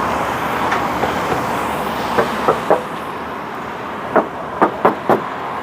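Steady background noise with a series of short sharp clicks and knocks: three about two seconds in, then four more a little after four seconds.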